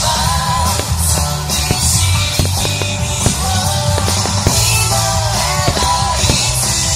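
Rock music with a sung melody over electric guitar, bass and a steady drum beat.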